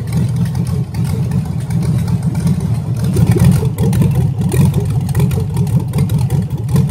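Carbureted junkyard 5.3-litre LS V8 running steadily on an engine run stand, exhausting straight out of open manifolds with no pipes. It runs evenly and sounds pretty good, with no lifter tick, even though the gauge shows no oil pressure at idle.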